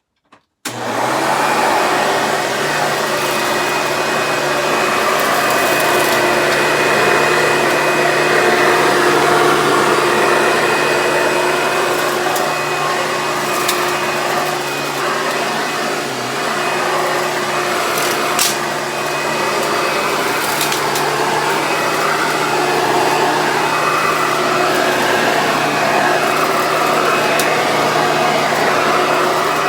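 Hoover Dimension Supreme upright vacuum cleaner switched on about half a second in, then running steadily with a constant motor hum and whine while picking up shredded paper, with a few sharp clicks.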